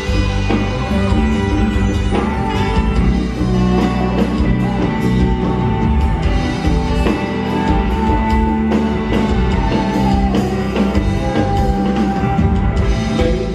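Live band playing a pop-rock song over a PA, with drums, bass and electric guitar.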